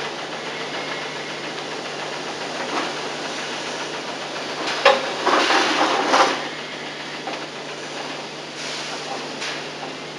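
Plastic seat trim strips being fitted to a backrest moulding: a sharp click about five seconds in, then a second or so of scraping and rustling, with a few lighter handling noises later, over the steady hiss and hum of an old videotape recording.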